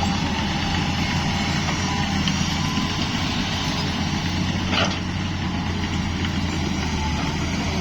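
Diesel engine of a heavy earthmoving machine running steadily with a low, even rumble, and one short sharp sound about five seconds in.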